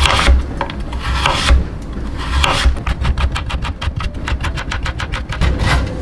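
Kitchen knife chopping a carrot on a cutting board: a few separate cuts, then about two seconds of fast, even chopping at roughly nine cuts a second as the carrot is cut into thin strips, and a few more single cuts near the end.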